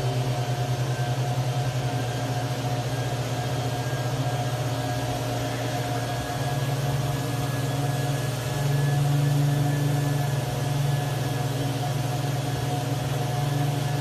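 Steady mechanical hum of a running motor, swelling slightly for a second or two about nine seconds in.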